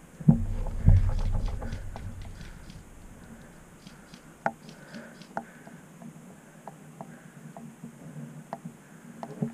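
Two low thumps about half a second apart near the start, then scattered faint clicks and crackles from dry twigs and grass as the crouching player shifts in the brush.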